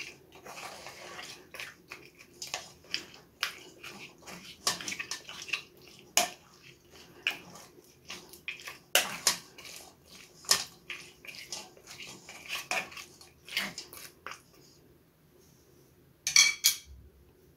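Wooden spoon pressing and scraping boiled tamarind and dried plums against a stainless steel mesh strainer to force the pulp through, with many irregular scrapes and clacks. It stops about three seconds before the end, followed by a quick cluster of sharp knocks.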